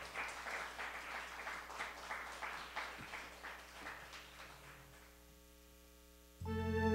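A few hands clapping, about four claps a second, fading away over about five seconds. Near the end an electronic organ comes in with a sustained chord.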